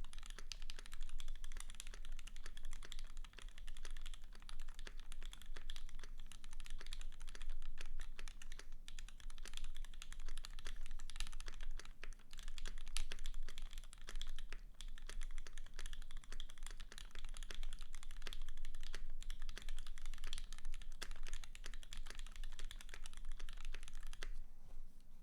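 Fast continuous typing on a custom aluminium 60% mechanical keyboard (Keycult No.1/60) with lubed L&F Aqua Tealios linear switches, greased stabilizers and GMK keycaps, a dense stream of key clacks. The typing stops about a second before the end.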